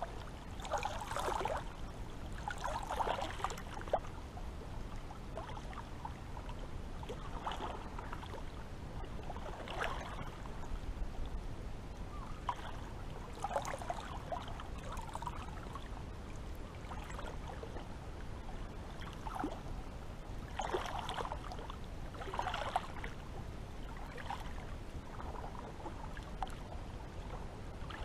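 Small sea waves lapping and splashing in irregular bursts every second or two, over a steady low rush of water.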